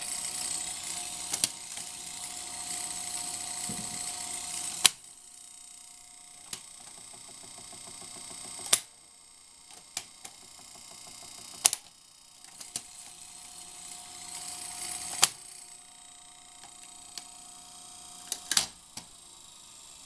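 1978 RCA VCT-200 VCR's tape transport running with a steady mechanical hum, stopped twice by a loud clunk, with scattered clicks and clunks of the mechanism in between. The owner suspects loose belts underneath.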